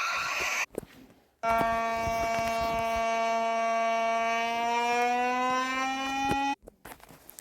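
Electronic alarm buzzer tone: one harsh, buzzy note held for about five seconds, its pitch creeping slightly upward, then cut off sharply. Before it, a different harsh, noisy alarm sound stops abruptly under a second in.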